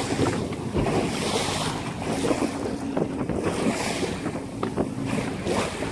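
Wind buffeting the microphone over the rush and slosh of choppy ocean waves around a small open fishing boat, with an outboard motor running steadily underneath.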